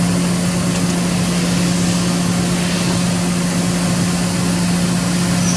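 Makino V55 5-axis CNC vertical machining center running, a steady low hum under an even hiss.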